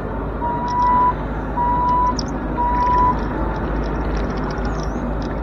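Bobcat E42 mini excavator's diesel engine running steadily under the cab, with three loud, evenly spaced electronic beeps, each about half a second long, in the first three seconds.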